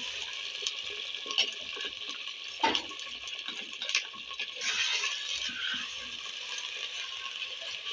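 Beef pieces sizzling in hot oil in an earthenware clay pot, a steady hiss. A metal skimmer and wooden spoon clink and knock against the pot a few times, the loudest about a third of the way in.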